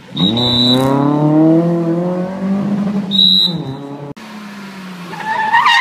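Rally car engine revving hard, its note climbing steadily as the car accelerates out of the corner, then a short squeal of tyres near the end.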